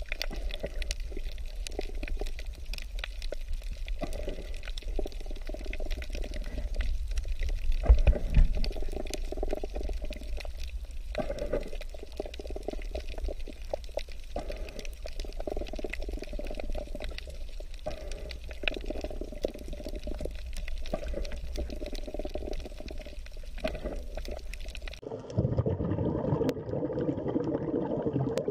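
Underwater ambience picked up by a submerged camera: a steady low, muffled water rumble with scattered crackling clicks, and one louder bump about eight seconds in. Near the end the sound cuts abruptly to a different, fuller sound in the middle range.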